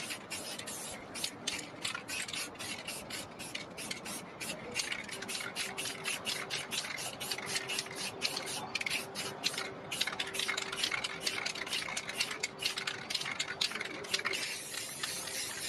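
Aerosol spray-paint can hissing in many short, quick bursts as paint is sprayed onto a flat metal plate.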